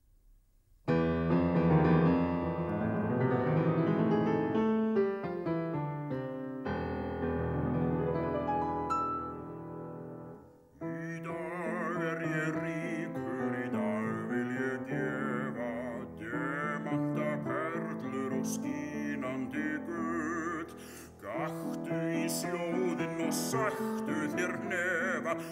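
Grand piano starts a song's introduction alone about a second in. About ten seconds in, a deep male bass voice begins singing in Icelandic with vibrato, to piano accompaniment.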